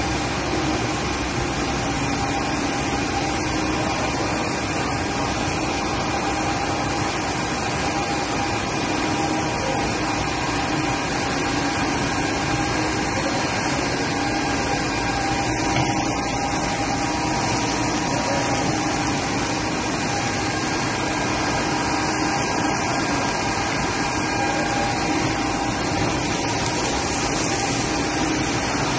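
Steady drone of a soybean-meal press line running: screw oil presses and screw conveyors with their electric motors, a constant mechanical noise carrying a few steady hum tones.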